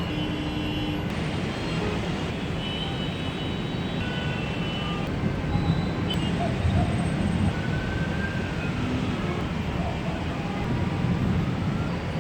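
Steady rumble of city traffic, with a few faint short tones over it and no sharp crack.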